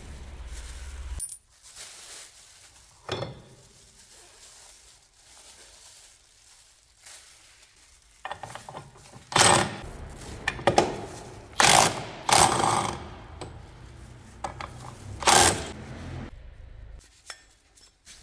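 Metal tools and parts clinking and clattering in a string of sharp knocks, the loudest bunched from about halfway through, as a scooter's belt drive (CVT) is taken apart.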